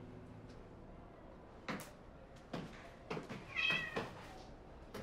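Footsteps coming down stone stairs, a few sharp steps, and a cat meowing once about three and a half seconds in.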